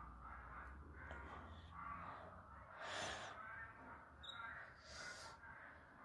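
A domestic canary in a wire cage gives faint, short, scattered calls, with brief sharper sounds about three seconds in and again near five seconds.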